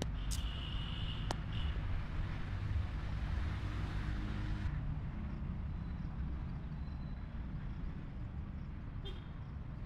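Outdoor background: a steady low rumble under a hiss that stops about halfway through, with a couple of faint clicks about a second in.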